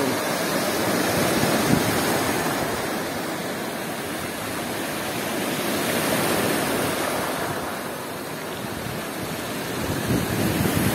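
Black Sea storm surf: big waves breaking and washing up a pebble shore, a steady rush that swells and eases as each wave comes in and draws back.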